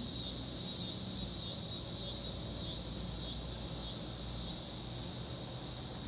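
Insects trilling outdoors in a steady, high-pitched chorus that pulses evenly, dipping a little under twice a second.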